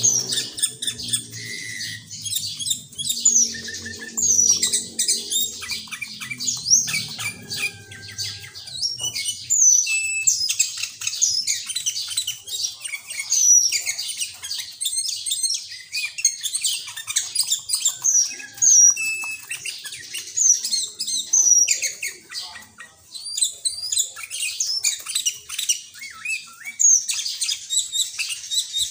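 Sooty-headed bulbul singing a rapid, continuous string of loud chirps and whistled phrases, with phrases copied from the green leafbird. A low, steady hum runs underneath for the first nine or so seconds.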